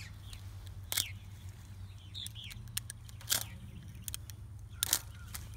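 Utility knife cutting through strands of plastic snake netting: a few sharp snips and clicks, the loudest about a second, three and a half and five seconds in, over a low steady hum.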